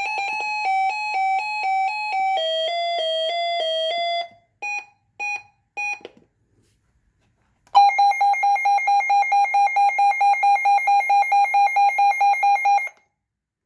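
Two weather-radio alert sirens in turn: first a Reecom weather radio's series of electronic tones stepping down in pitch, ending in three short beeps; then, after a short pause, a Midland WR120 weather radio sounding a rapid, steadily pulsing high beep for about five seconds. Both are the radios' siren test at full volume.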